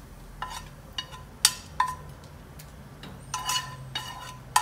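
Metal spoon clinking against the pan and plate while roasted spices and curry leaves are scraped out: about half a dozen separate sharp clinks, each with a short ring, the loudest about a second and a half in.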